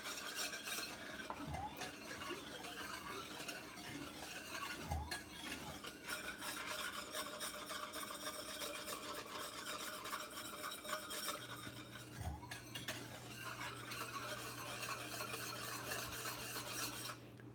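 Wire whisk stirring and scraping around a stainless steel skillet of boiling brown-sugar syrup, a continuous rasping swish. The syrup is being stirred constantly so the sugar doesn't burn as it cooks down and caramelizes for peanut brittle.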